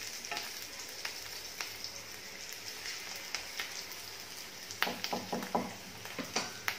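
Green chillies frying in hot oil with cumin and mustard seeds in a kadai: a steady sizzle with scattered crackling pops, stirred with a wooden spatula. A run of sharper clicks comes about five seconds in.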